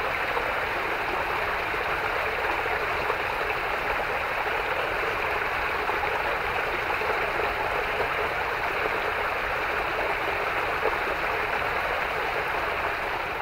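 Small forest stream pouring over a rock ledge in a narrow cascade: a steady rush of running water.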